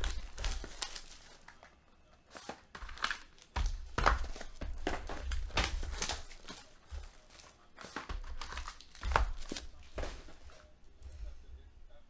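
Plastic wrapping and foil crinkling and tearing as sealed boxes of football trading cards are opened by hand, with irregular knocks from handling. It quiets down near the end.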